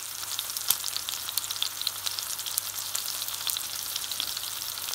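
Ribeye steak sizzling in hot oil in a pan, searing on its first side to build a crust: a steady hiss with many small crackling pops of spattering fat, one sharper pop under a second in.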